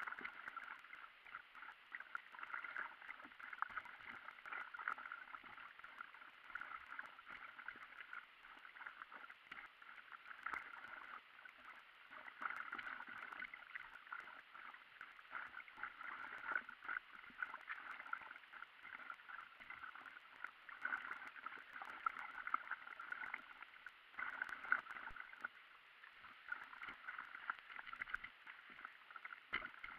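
Water gurgling and splashing against an inflatable stand-up paddleboard being paddled along a river: a faint, steady, fluttering wash of small splashes.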